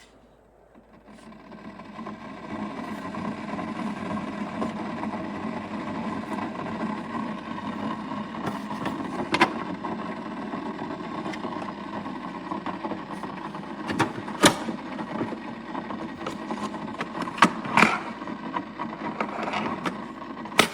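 Keurig K-Elite single-serve coffee maker running a brew cycle: a steady mechanical running noise that starts about a second in and holds, with a few sharp clicks or knocks in the second half.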